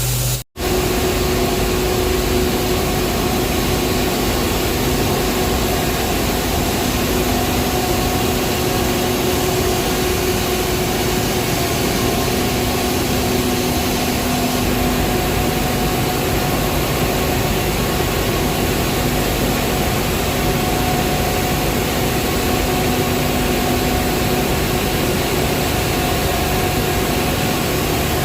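Power plant machinery running steadily and loudly: a dense, even rush of noise with a few held hum tones in it. It drops out for an instant about half a second in, at a cut.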